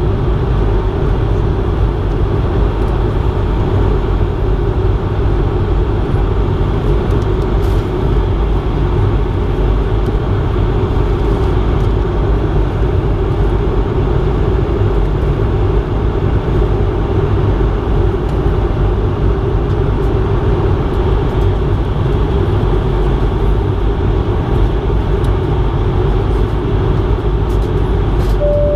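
Steady cabin noise inside a Bombardier CS100 airliner in flight: an even rush of air over the fuselage and a low drone from its Pratt & Whitney geared turbofans. A short single beep sounds near the end.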